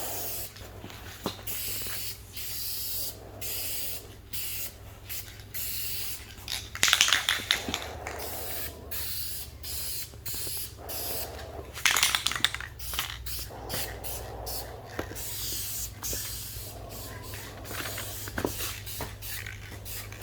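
Aerosol rattle can spraying candy paint in repeated short bursts of hiss, one pass after another, two of them louder about 7 and 12 seconds in. A steady low hum runs underneath.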